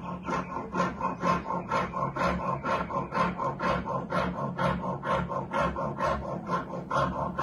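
Jeweler's saw with a coarse wax-cutting blade sawing through a jewelry wax ring blank in quick, even back-and-forth strokes, about four a second, each one a scratchy rasp.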